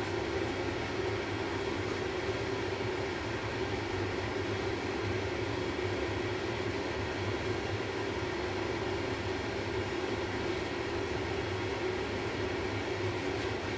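Gas-fired forge burners running with a steady rushing rumble that does not change.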